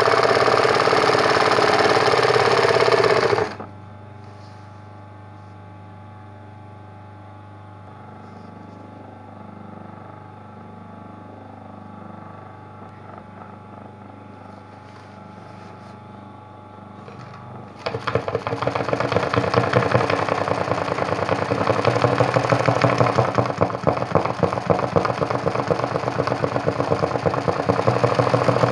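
Sewing machine stitching at speed for machine embroidery. It stops about three seconds in, leaving only a low steady hum, then starts stitching again about eighteen seconds in.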